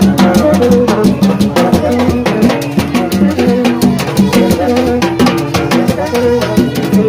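Haitian rara band playing live: a repeating pattern of low pitched notes over drums and metal percussion strikes, at a steady beat.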